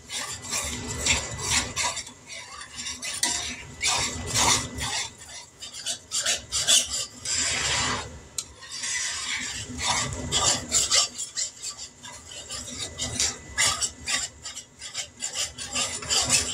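A utensil stirring and scraping around a skillet of brown gravy, beef broth being worked into a cooked flour roux, with irregular scrapes and light clinks against the pan.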